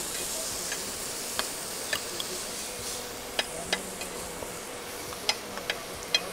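Chopped green chillies, garlic and cumin sizzling in oil on a hot tawa, with scattered sharp clicks of a steel spoon scraping and tapping the pan as they are stirred and pressed for chilli thecha.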